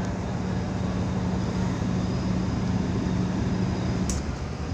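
Tugboat engine running steadily, a low drone with a steady hum in it that drops away about four seconds in.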